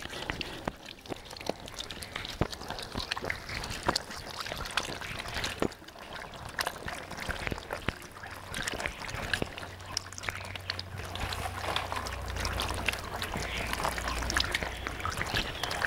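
A thin stream of water pouring from a kettle spout onto hands and splashing into a plastic basin, with the wet slapping and rubbing of hands being washed. A low rumble comes in about two-thirds of the way through.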